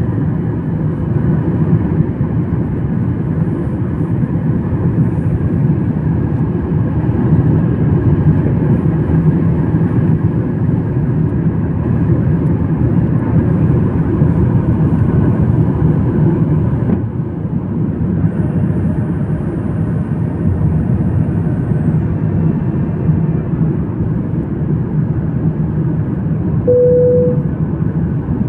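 Steady, loud drone of engine and airflow noise inside an airliner's cabin in flight. A short single-pitch beep sounds near the end.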